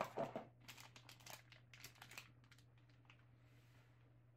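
Clear plastic bag of multimeter test leads crinkling in a hand as it is put down on a table: a scatter of short, faint crackles that die away about halfway through.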